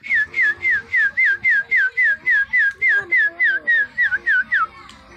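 A person whistles a quick string of short notes, each sliding down in pitch, about three or four a second, stopping near the end. It is the whistle used to call up the wind.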